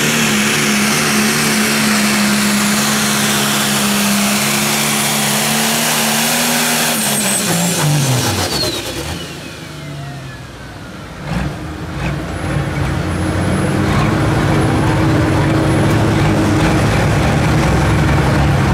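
Turbocharged diesel engine of a Pro Stock pulling tractor running flat out under load, with a high, steady turbo whistle. About seven seconds in the engine is shut down at the end of the pull, and the engine note and turbo whistle fall away together. After a knock, the engine runs on at low speed.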